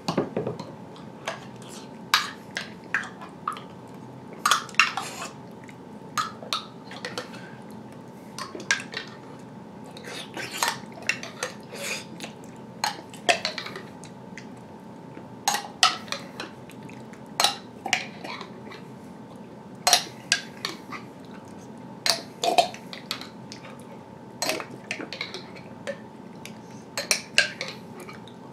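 A metal spoon clinking and scraping against a jelly jar as jelly is dug out by the spoonful: sharp, irregular clinks in quick clusters every second or two.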